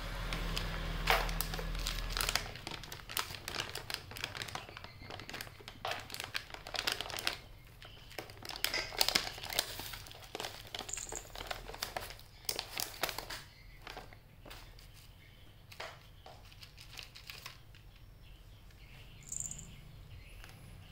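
Domestic cat eating dry kibble from a plastic tray, crunching and chewing in quick, irregular crackles. The crunching is dense at first and thins out in the last third.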